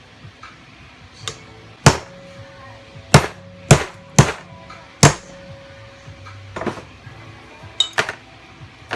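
Hammer blows on a 5/8 socket used as a driver, knocking the old shaft bushing out of a GM Saginaw power steering pump housing. It is a series of about eight sharp metal-on-metal strikes at uneven intervals, the hardest ones in the middle, with a faint ring between some of them.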